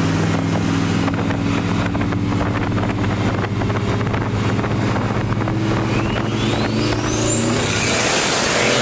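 Turbocharged LS V8 in a BMW E36 running at low revs as the car rolls along, a steady deep engine note. Near the end the revs climb slightly and a whistle rises steeply in pitch, the turbo spooling, followed by a burst of hiss.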